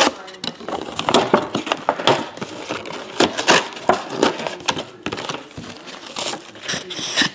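Foil trading-card pack wrappers crinkling and crackling as they are handled, in a quick, irregular run of crackles.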